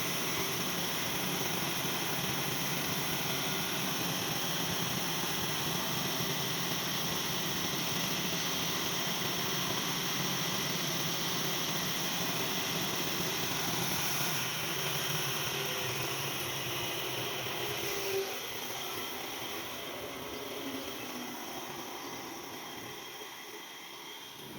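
Sawmill machinery running: a steady mechanical hum and hiss that fades gradually over the last third, with a single knock about three-quarters of the way through.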